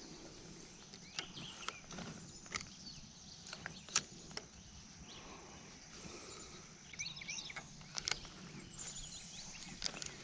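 Quiet outdoor ambience: birds chirping, mostly about seven to nine seconds in, over a steady high hiss, with several scattered sharp clicks.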